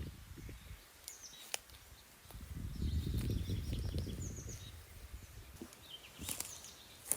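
Forest ambience with small birds giving short, high chirps several times. Under them is a low rumbling noise that swells for about two seconds in the middle, with a few sharp clicks.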